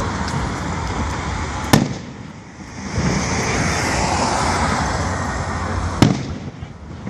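Aerial fireworks going off: two sharp bangs about four seconds apart, with steady crackling between them.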